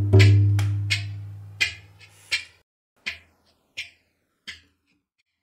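Shamanic drum and didgeridoo music dying away. The didgeridoo's deep drone fades out over the first two seconds or so, while drum strikes, about one every 0.7 s, grow fainter and sparser, leaving a near-silent gap near the end.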